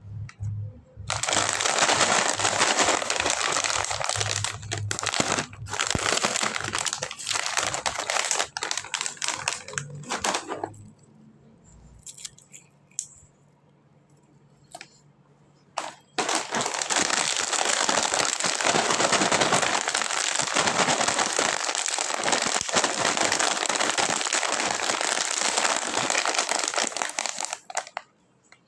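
Plastic snack packaging crinkling as it is handled and opened, in two long stretches with a few scattered clicks and rustles in the pause between them.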